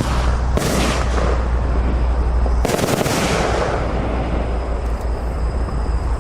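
Fireworks cake (the COBALT battery) firing: a dense, continuous run of shots and crackling bursts, with sharper loud reports at the start, about half a second in and near three seconds in, over a steady low rumble.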